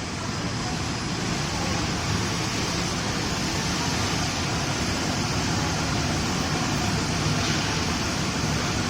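Spiral filter tube welding machine running in a workshop, making a steady, even rushing noise that grows slightly louder over the first two seconds.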